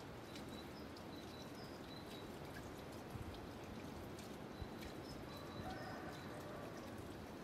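Quiet farmyard ambience: chickens foraging on stony ground, with faint high, short chirps of small birds recurring over a steady outdoor hiss, a few light clicks, and a soft low call about six seconds in.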